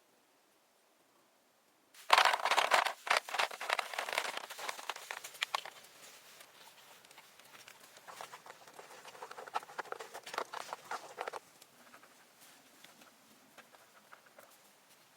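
Dry leaves and brush being handled, a dense crackling rustle that starts suddenly about two seconds in. It comes in two louder spells and stops sharply near two-thirds of the way through, leaving faint scattered rustles.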